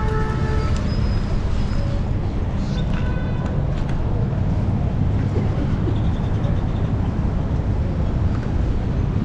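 Rush-hour city street traffic: a steady low rumble of bus and car engines, with a brief high-pitched tone right at the start and another about three seconds in.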